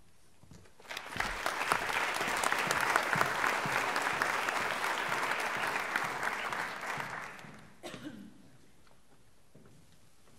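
Audience applauding: clapping starts about a second in, holds for about six seconds and dies away, followed by a single knock.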